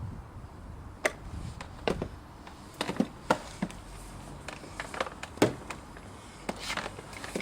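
Handling noises: a dozen or so separate light knocks and clicks at irregular intervals over a low background rumble, with no polisher motor running.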